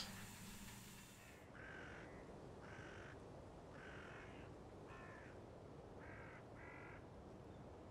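A crow cawing about six times, roughly once a second, faint. A soft hiss fades out about a second and a half in, just before the calls begin.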